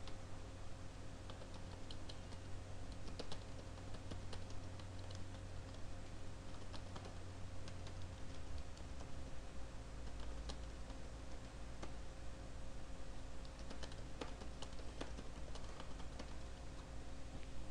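Typing on a computer keyboard: irregular runs of key clicks with short pauses between them, over a faint steady hum.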